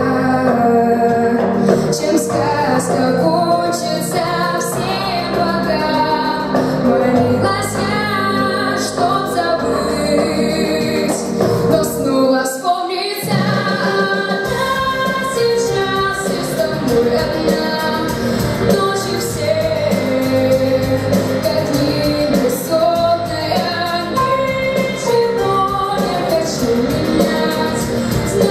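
A female solo voice singing a song over musical accompaniment with a steady beat; the low accompaniment briefly drops out about twelve seconds in.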